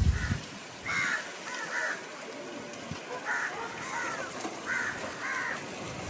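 Crows cawing repeatedly: about eight short, harsh caws, some in quick pairs, with a pause in the middle.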